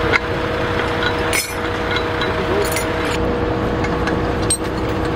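An engine runs steadily with a constant droning hum, with a few short metallic clinks on top.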